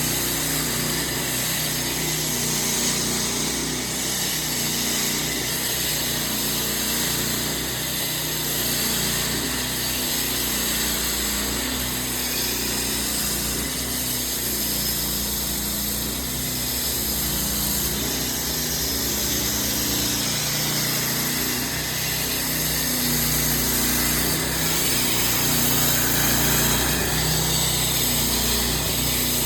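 Homemade concrete saw cutting through a concrete yard slab: its motor runs steadily under load while the blade grinds through the concrete.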